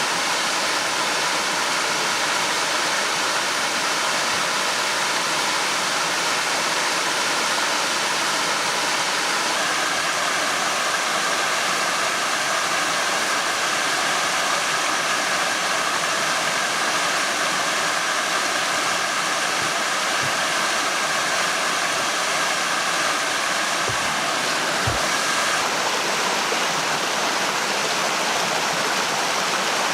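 Steady rushing water, like a stream or small waterfall, running without a break.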